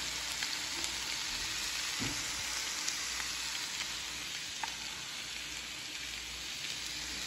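Mangrove snapper fillets pan-frying in hot oil in a skillet: a steady sizzle with small pops and crackles.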